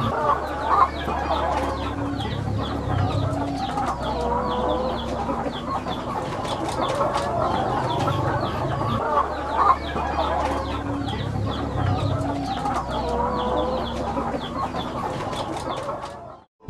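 A large flock of caged laying hens clucking and calling over one another in a dense, steady chatter, with a steady low hum underneath. The sound cuts off shortly before the end.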